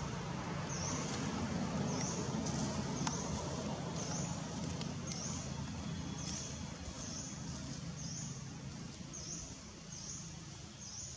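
A bird repeats a short high call evenly, roughly every three-quarters of a second, over a steady low hum.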